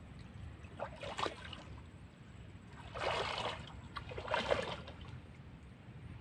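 Shallow creek water sloshing and dripping as a man wades in it and handles a wet cast net, with three brief splashes: about a second in, around three seconds, and around four and a half seconds.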